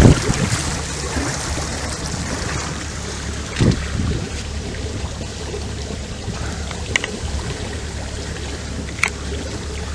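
Boat's engine running steadily with a low hum under the wash of water past the hull. A dull knock comes a few seconds in, and there are a couple of faint clicks later.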